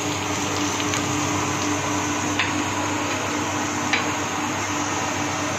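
Onions frying in oil in an open pressure cooker: a steady sizzle with a low steady hum underneath and a few faint clicks.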